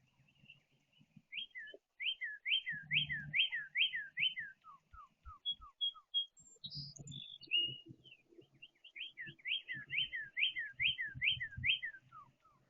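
A songbird singing fast runs of repeated, loud slurred whistles, each note sweeping sharply in pitch. There are two long runs with a pause about halfway, plus a few higher chips. Dull low thumps sound throughout.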